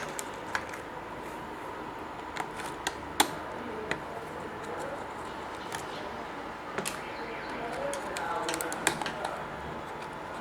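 Scattered sharp clicks and taps of small tools and plastic laptop parts being handled during disassembly, one louder click about three seconds in and a quick cluster near the end.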